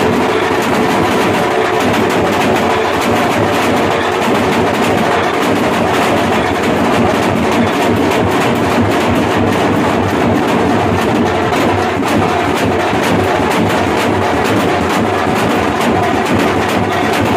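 A street drum band playing together: several large bass drums and snare drums beaten with sticks in a fast, dense, unbroken rhythm at full loudness.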